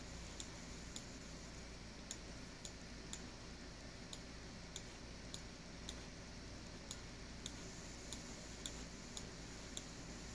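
Faint, sharp clicks, mostly about one every 0.6 seconds with a few gaps, over a steady low hum.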